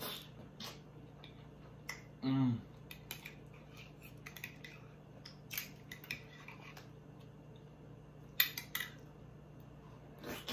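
Close-miked eating: scattered wet clicks and smacks of chewing sauce-covered fish, with a fork clicking against a glass dish. A brief hummed "mm" comes about two seconds in.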